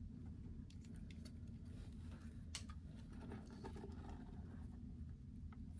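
Faint handling sounds: scattered light clicks and taps as a small acrylic paint tube's screw cap is turned and the tube handled, with one sharper click about two and a half seconds in, over a low steady hum.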